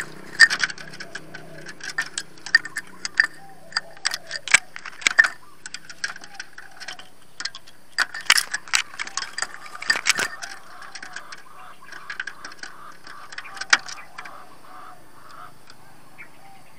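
Irregular sharp clicks and taps from a caged spotted dove moving about against the camera and the bamboo cage, its beak and feet knocking on the lens, bars and seed cups, with bursts of several taps in quick succession.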